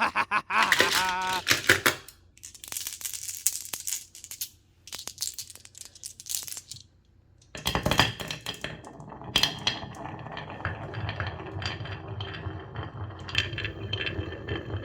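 Marbles rolling and clacking along a wooden marble run: scattered bursts of rattling and clicks, then a dense, continuous clatter from about halfway through.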